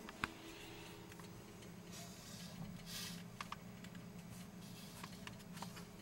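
Quiet room tone with a faint steady hum, a few light clicks and a soft rustle about three seconds in.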